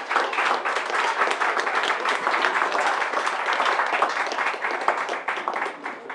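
A small group of people applauding, with voices mixed in. The clapping dies away about a second before the end.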